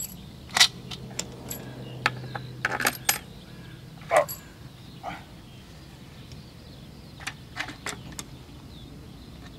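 Irregular sharp clicks and knocks of hard parts being handled and fitted by hand on a model aircraft, about a dozen in all, with a cluster near three seconds in. A low steady hum runs under them for the first few seconds.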